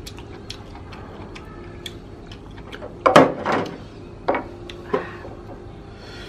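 Small ticks and taps of grilled chicken being handled and torn apart on a table, with a louder knock about three seconds in and two lighter ones about a second apart after it.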